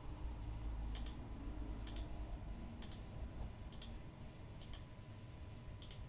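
Computer mouse button clicking about once a second, six clicks, each a quick press-and-release pair, as the menu categories are clicked through. A low rumble sits under the first second.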